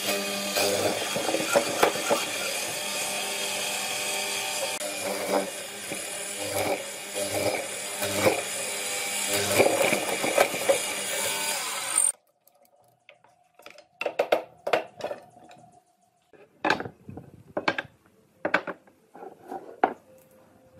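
Benchtop hollow-chisel mortiser running, its square chisel plunging repeatedly into pine with a surge about once a second. It stops abruptly about twelve seconds in, followed by a few scattered light knocks.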